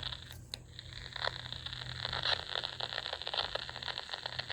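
CB radio receiver hissing static with dense, fast crackling and a faint low hum, no signal coming through, from poor band conditions on channel 28.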